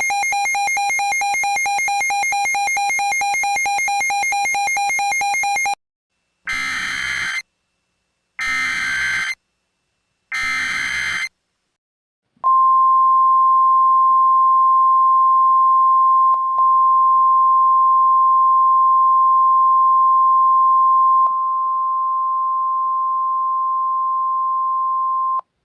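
Emergency Alert System tones from a simulated NOAA Weather Radio alert. A buzzy, rapidly pulsing tone runs for about six seconds, then three one-second bursts of SAME data-header noise, then the steady 1050 Hz NOAA Weather Radio warning alarm tone held for about thirteen seconds, dropping in level near the end.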